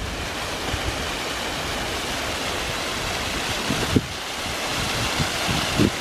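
Steady rush of water, as from a waterfall or fast river, with some low wind buffeting on the microphone and a short knock about four seconds in.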